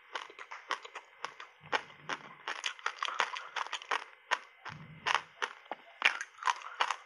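Close-up crunching of reshaped ice coated in matcha powder as it is chewed: a quick, uneven series of sharp crunches, about three to four a second.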